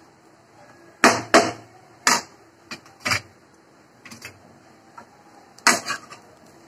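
A metal spatula scraping and knocking against a kadhai as poha (flattened rice) is stirred. About eight short, irregular clatters.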